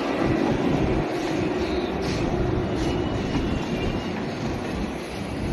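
Indian Railways passenger coaches rolling past at close range as the express departs: a steady rumble of wheels on rail that eases slightly. A thin high wheel squeal is heard briefly about three seconds in.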